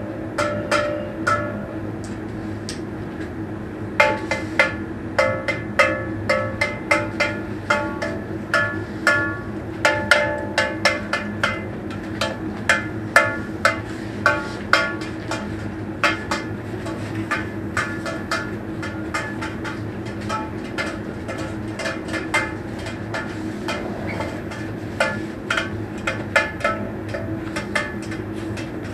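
A quick, irregular run of short struck pitched notes over a steady low hum. The notes come sparsely at first, crowd together from about four to sixteen seconds in, then thin out again.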